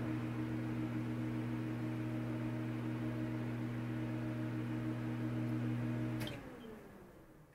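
A steady, low held drone with a few overtones, the closing note of the soundtrack music, which slides down in pitch and fades out near the end.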